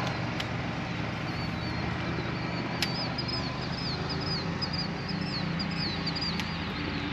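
Steady low drone of a boat motor, with a bird twittering in quick repeated chirps over it for most of the stretch. There are two sharp clicks, about three seconds in and near the end.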